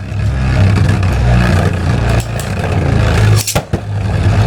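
Two Beyblade spinning tops, one of them 3D-printed, whirring and grinding against each other in a plastic stadium, a steady buzzing hum. About three and a half seconds in it breaks off briefly with a few sharp clicks as the tops clash.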